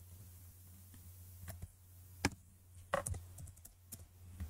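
A few faint, scattered computer keyboard keystrokes and clicks, mostly in the second half, over a steady low hum.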